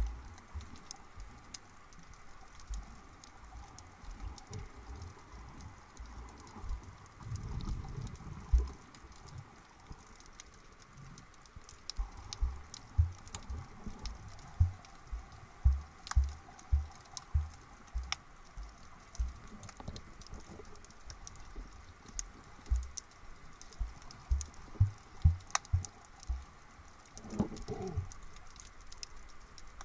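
Underwater ambience heard through a submerged camera: a steady scatter of sharp clicks and crackles over a faint hiss, with irregular low thumps throughout.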